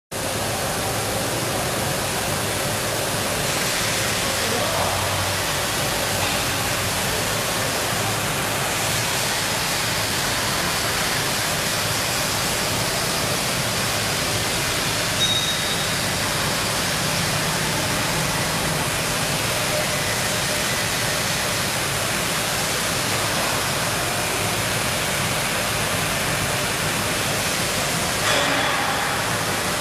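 Ronlon RL C200 ride-on floor sweeper running, its side brushes sweeping a concrete floor: a steady, even hiss-like noise.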